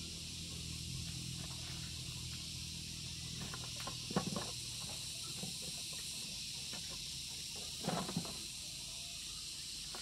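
Steady high-pitched hiss of background ambience, with faint short voices about four and eight seconds in.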